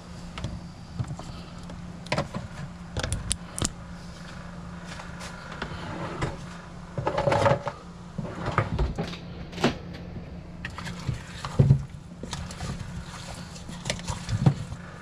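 Scattered knocks, clatter and rustling of hands and a utensil working around a slow cooker crock of baby potatoes, with a louder cluster of handling noise about halfway through and a sharp knock a few seconds later, over a steady low hum.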